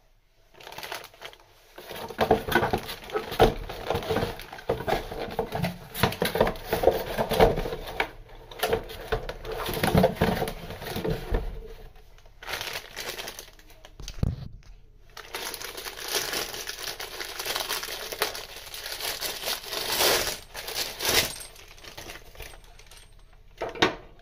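Crinkling and rustling of packaging being handled, in two long stretches with a short lull about fourteen seconds in.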